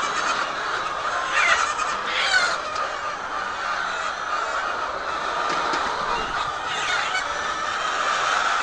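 A flock of laying hens clucking and calling together in a steady chatter, with two louder squawks about one and a half and two and a half seconds in.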